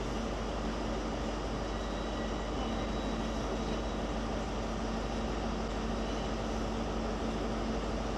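Great Western Railway High Speed Train's coaches passing on the line, a steady rumble of wheels on the rails with a steady low hum underneath.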